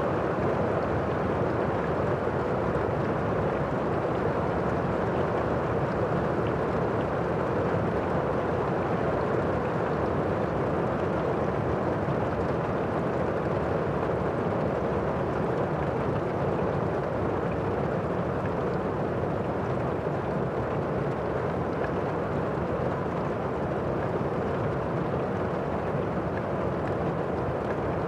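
Steady rain heard from indoors: an even, muffled hiss with its weight low and little brightness on top, unchanging throughout.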